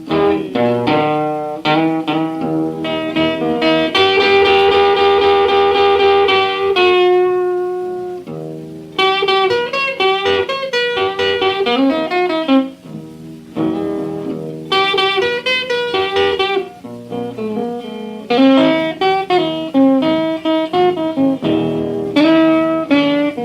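Blues guitar break from a 1949 78 rpm record: picked single-string lines with bent notes, and a chord left ringing for a few seconds about four seconds in.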